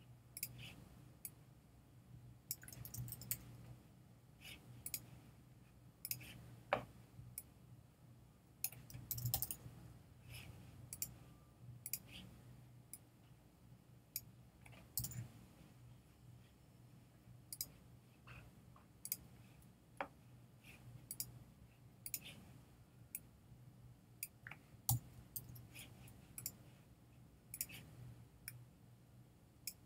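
Scattered clicks and short runs of keyboard typing at a computer, over a faint steady low hum.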